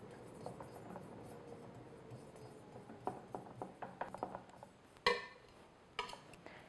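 Faint scraping and light ticks of a metal spatula smoothing frosting across the top of a cake, then two sharp clinks, about five and six seconds in, as the spatula knocks against a glass mixing bowl.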